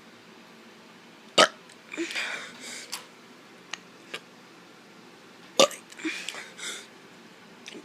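A child forcing out weak, feeble burps, twice: each starts with a sharp, hiccup-like gulp and trails into about a second of breathy noise.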